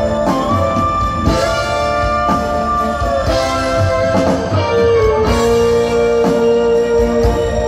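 A rock band playing live, loud, through a concert PA: an electric lead guitar holds long notes that bend in pitch, over bass and drums, with cymbal crashes about every two seconds.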